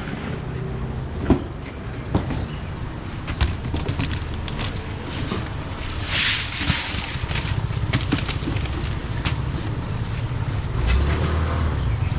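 Steady low rumble of outdoor street noise with scattered knocks and clatter, and a short hiss about six seconds in.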